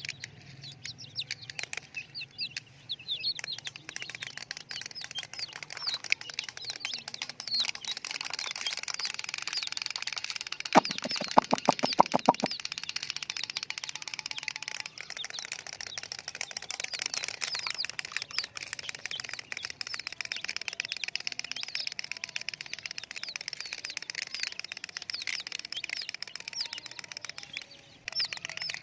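A group of chicks peeping continuously, many high chirps overlapping. About eleven seconds in, a loud, fast rattle of about ten pulses a second lasts under two seconds.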